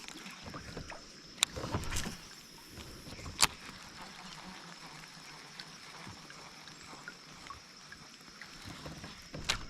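Quiet handling sounds from a kayak on the water: faint water movement with a few sharp clicks and knocks, over a faint steady high-pitched whine.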